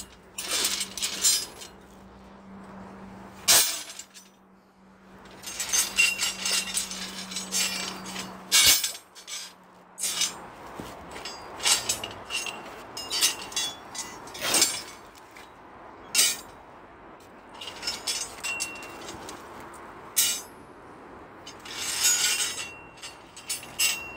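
Cut pieces of ribbed steel rebar clanking and ringing against each other as they are handled and dropped onto a heap, in clusters every few seconds.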